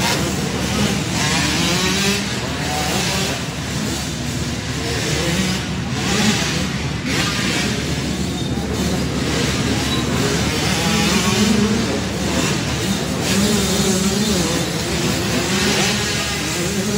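Several 85cc two-stroke motocross bikes racing together, their engines revving up and falling back over and over as they take the jumps and turns.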